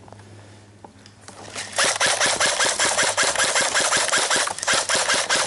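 A game gun firing a long rapid burst, about ten shots a second. It starts under two seconds in and runs to the end.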